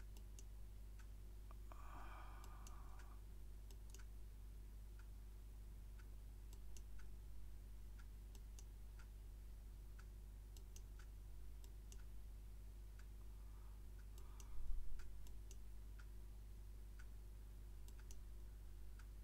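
Computer mouse clicking now and then, in scattered single and paired clicks, over a steady low hum. A dull thump comes about fifteen seconds in.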